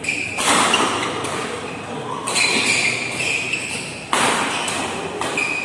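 Badminton rackets striking the shuttlecock in a doubles rally: several sharp hits, the loudest about every two seconds, each echoing in a large hall, over a background of spectator chatter.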